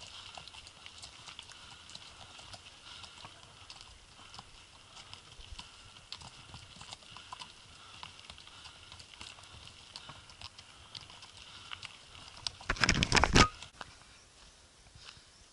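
Horses' hooves clopping on a gravel track: faint, irregular clicks over a steady hiss. A loud, rough burst of noise lasts under a second near the end.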